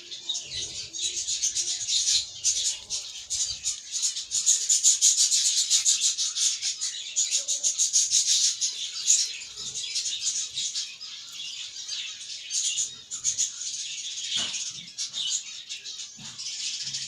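Budgerigar colony chattering: many budgies warbling and chirping at once in a dense, continuous high-pitched din, loudest a few seconds in.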